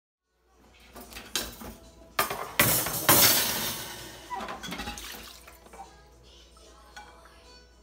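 Dishes and cutlery clattering as clean dishes are unloaded and put away: a string of sharp clinks and knocks, loudest a couple of seconds in, then fewer and quieter.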